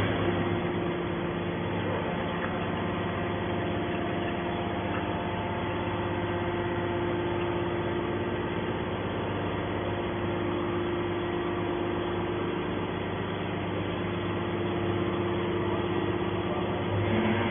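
Can baling press's motor running with a steady hum and a constant tone.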